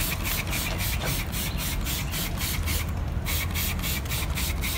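Hand trigger spray bottle being squeezed over and over, a quick series of short hissing sprays, several a second, with a brief pause about three seconds in.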